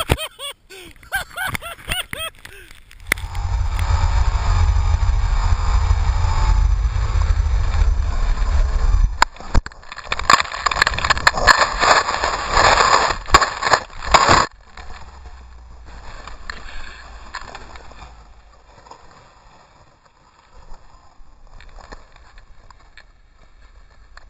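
A snowmobile crash heard through a helmet-camera microphone. Loud rushing and rumbling noise from snow and wind battering the microphone as the rider tumbles, which cuts off suddenly about halfway through and gives way to a much quieter background. A few sweeping rises and falls in pitch come just before the loud part.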